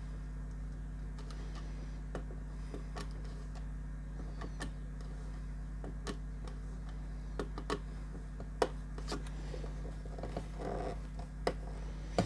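Scattered light clicks and taps of wires and small plastic connectors being handled and fitted into an LED splitter's terminals, over a steady low hum.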